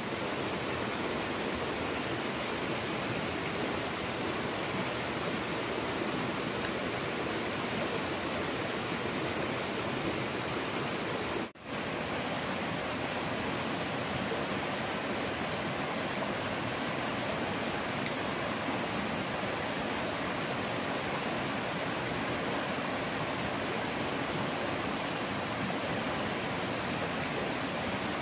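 Steady rushing of stream water, an even hiss that drops out for an instant about eleven seconds in, then carries on unchanged.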